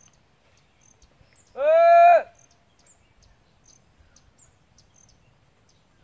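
A cow calling once, a short loud bawl that rises at the start and then holds steady, about a second and a half in. Faint insect chirps run underneath.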